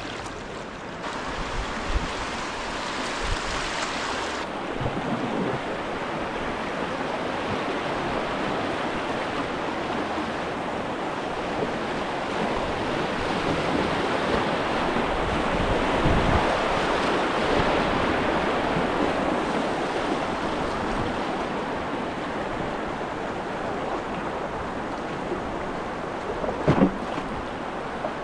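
Whitewater of a class II river rapid rushing steadily, heard from a kayak on the water, getting a little louder in the middle. A few short knocks or splashes break through, about two seconds in, around the middle, and a quick cluster near the end.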